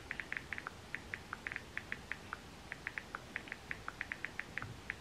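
Smartphone touchscreen keyboard clicking as a text message is typed: quick, irregular high ticks, about six a second.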